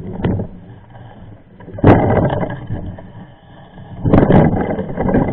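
A mountain bike rattling and jolting over rough trail, with loud clattering knocks about two seconds in and again near the end.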